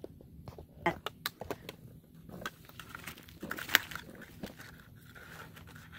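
Irregular crinkling, rustling and small clicks from hands and a metal fork working food on a bed of fresh leaves, with one sharper click a little before four seconds in.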